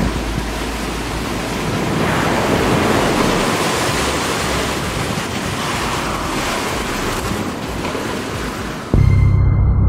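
Strong wind and rushing, breaking waves around a sailing yacht in heavy seas, with wind buffeting the microphone. About nine seconds in the sea noise cuts off abruptly and a louder low steady hum takes over.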